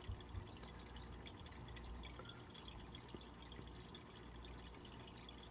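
Faint, steady trickle of running aquarium water, with a few small drips.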